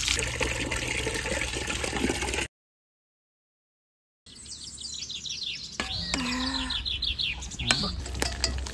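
Tap water splashing over bullfrog meat being rinsed in a basin. It cuts off suddenly into a second or two of dead silence, then a rapid run of short, high, falling chirps and a couple of whistled calls.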